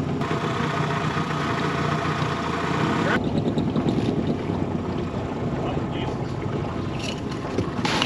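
Outboard motor of a small boat running steadily as the boat turns around, its sound changing abruptly about three seconds in.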